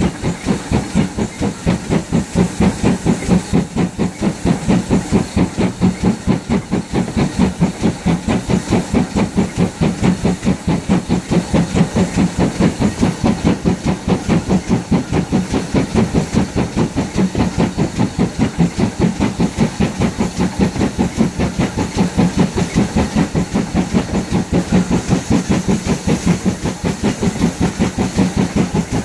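GWR 56xx class 0-6-2 tank steam locomotive working a train, its exhaust chuffing in a steady, even rhythm with a constant hiss of steam, heard from an open window of a carriage behind it.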